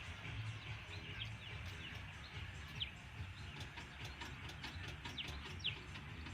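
Small birds chirping: scattered short, quick chirps that drop in pitch, over a steady low rumble of outdoor background noise.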